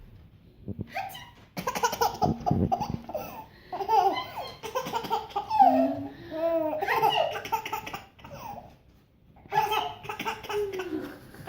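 A baby laughing hard in repeated bursts of belly laughs, breaking off for a moment about three-quarters of the way through before laughing again.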